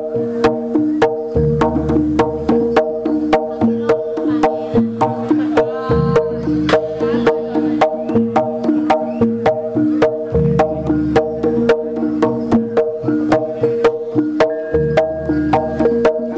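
Javanese jaranan gamelan music: a steady, rapid beat of sharp strokes, about four a second, under interlocking repeated pitched metallic notes, with a deep low note about every four and a half seconds.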